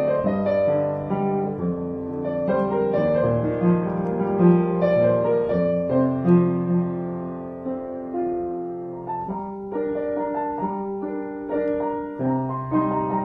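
Solo upright piano improvising in 3/4 time: chords in the bass under a melody. The playing thins and quiets for a moment about eight seconds in, then picks up again with new chords.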